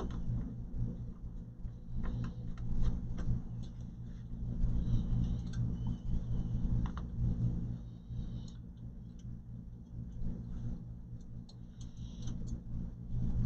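Scattered light clicks and taps from hands handling the opened all-in-one computer's plastic and metal parts, over a steady low hum.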